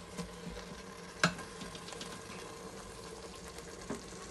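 Chopped onions sizzling in butter and olive oil in an Instant Pot on sauté: a steady crackling hiss. There is one sharp knock about a second in and a smaller one near the end.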